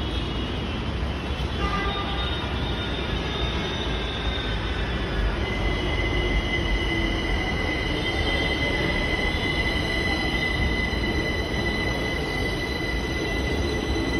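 Rapid Metro train pulling into the platform over a steady low rumble. About five seconds in, a high-pitched steady whine sets in and holds as the train slows alongside.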